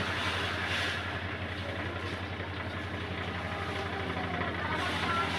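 A vehicle engine running steadily: a constant low hum under a haze of noise.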